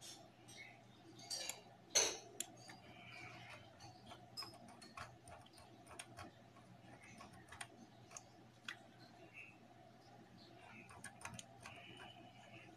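Scattered small clicks and ticks from a computer mouse as a PDF is scrolled and clicked through, the loudest about two seconds in, over a faint steady hum.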